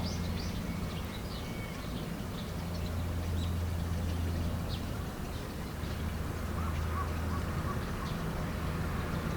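Small birds chirping in short, repeated high calls over a steady low hum.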